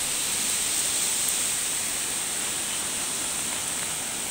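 Steady rushing hiss of water, even throughout with no separate splashes or knocks.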